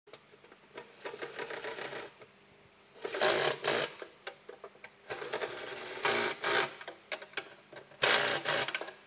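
Cordless drill-driver running in four short bursts, driving home the bolts that hold the oil baffle inside an engine sump.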